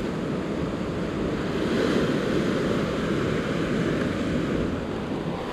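Ocean surf washing and breaking over rocks below, a steady rush with wind buffeting the microphone; it swells a little about two seconds in.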